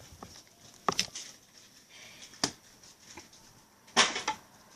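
A few sharp clicks and knocks of small objects being handled, the loudest near the end.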